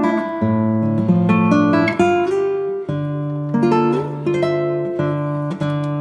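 Background music: a guitar piece of plucked notes and chords changing every half second or so.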